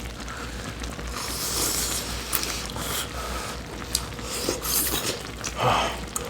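Eating from a pot of Korean army stew: cutlery clicking and clinking against bowls and the pot, with two longer stretches of hissing noise, about a second in and again near the end.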